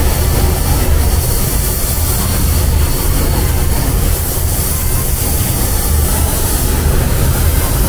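Steady loud rumble and hiss of spray painting in a paint booth: the booth's airflow with a spray gun running.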